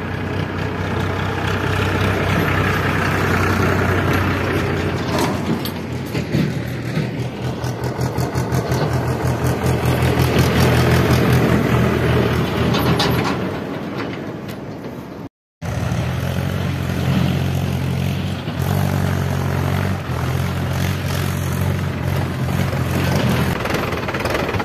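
Diesel farm tractors pulling trolleys driving past, the engine sound swelling as one passes close about halfway through. After a brief break, a Mahindra 575 DI tractor's diesel engine running steadily close by.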